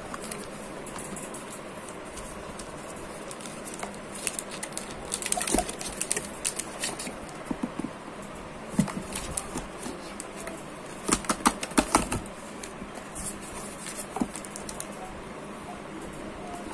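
Cardboard phone box and plastic-wrapped phone tray being handled: rustling and sharp clicks in two flurries, about four seconds in and again about eleven seconds in, with scattered single ticks, over a steady background hiss.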